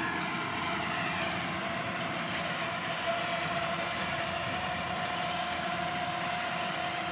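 Forage harvester's engine and chopping cutterhead running steadily under load while harvesting barley for silage, heard from inside the cab, with a steady whine over the rumble.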